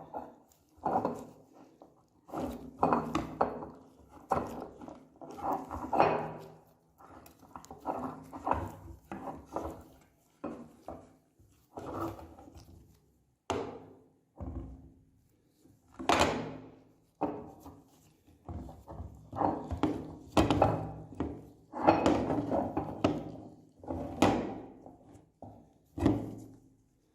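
Meat grinder crushing fruity candy in irregular bursts of crunching, roughly one a second, with short gaps between.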